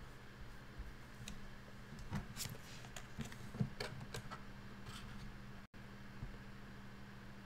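Faint handling noises, light clicks and rustles, as hands move a small plastic Codey Rocky robot and a card on a table, mostly in the first half, over a steady low hum.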